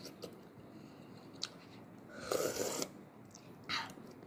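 A small child eating from a bowl with a spoon: a light spoon click about a second and a half in, then two short eating noises from the mouth, the first and longer of them just past two seconds.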